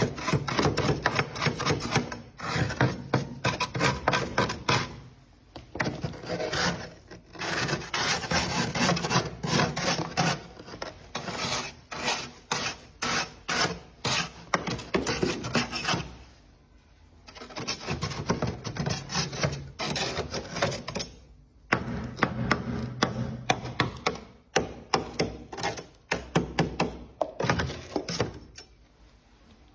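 A knife blade scraping thick frost off a freezer's inner walls in quick strokes, several a second, in runs of a few seconds broken by short pauses.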